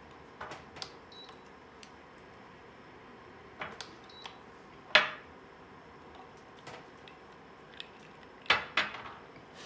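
Kitchen dishes and utensils being handled: scattered clinks and knocks, a few with a short ring, the loudest about five seconds in and two in quick succession near the end.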